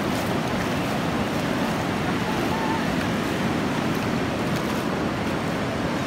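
Ocean surf breaking and washing up a sandy beach in a steady rush, with wind on the microphone.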